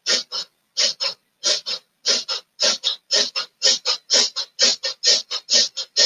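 A woman's rapid yogic breathing, short quick breaths in and out in even pairs, speeding up from about three to about four breaths a second.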